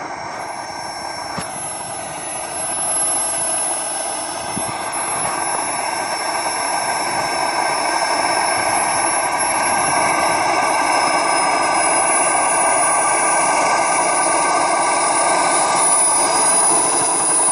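Small gas turbine engine of a Black Horse Viperjet radio-controlled model jet running at taxi power: a steady high-pitched whine over a rushing hiss, growing louder as the jet taxis closer.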